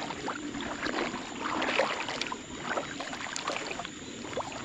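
Legs wading through shallow, muddy paddy water, sloshing and splashing irregularly with each stride.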